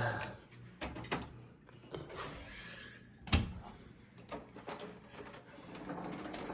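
A few scattered clicks and knocks of handling in a quiet room, the sharpest about halfway through; no vacuum motor running.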